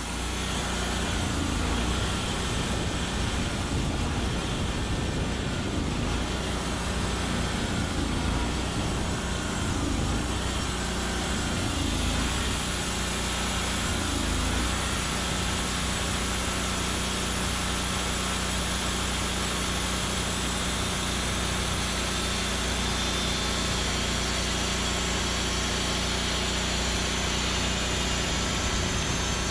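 Engine of a Norwood Lumbermate Mark IV band sawmill running steadily. Its pitch wavers slightly through about the first half, then holds even.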